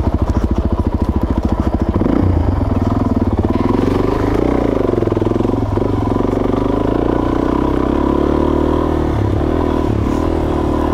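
Suzuki DR-Z400S single-cylinder four-stroke engine running at low revs with slow, distinct firing pulses. About two seconds in the revs pick up, then rise and fall as the bike is ridden along the trail.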